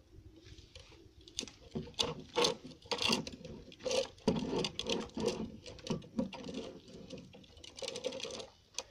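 A run of irregular sharp taps and clicks, several a second at times, thickest in the middle and again near the end.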